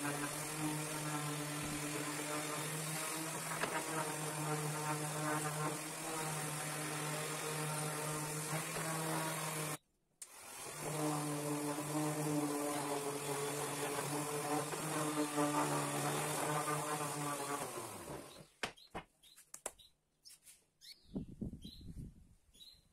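Einhell random orbital sander running steadily with a buzzing hum as it sands pine boards. The sound cuts out briefly about ten seconds in. Near the end it winds down, followed by a few light knocks as it is set down and faint bird chirps.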